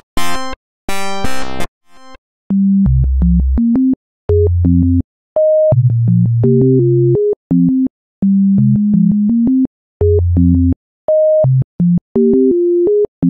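Phase Monkey phase-distortion software synthesizer playing a sequenced pattern: first a few bright, plucked notes on its harpsichord preset, then, about two and a half seconds in, its plain Init patch playing low, nearly pure tones that start and stop cleanly, with an occasional higher note.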